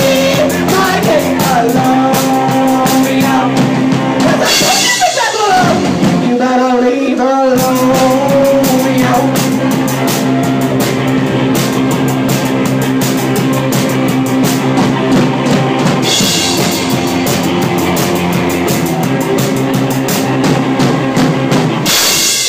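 Live rock band playing loud: drum kit, bass guitar and guitar, with a woman singing, her voice most prominent in the first several seconds.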